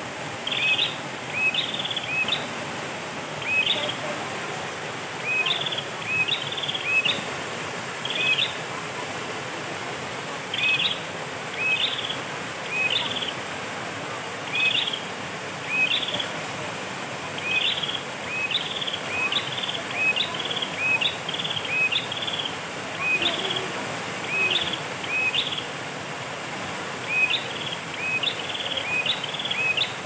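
A bird calling over and over in short high chirps, mostly in twos and threes every second or two, over the steady rush of a shallow forest stream.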